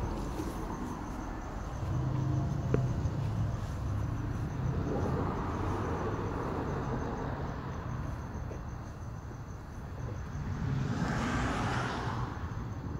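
Evening outdoor ambience: crickets chirping steadily over a low traffic rumble, with a louder rush of noise about eleven seconds in.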